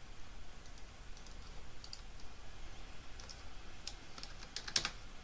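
Scattered clicks from a computer keyboard and mouse, with a quick run of keystrokes about four seconds in; the loudest click comes near the end.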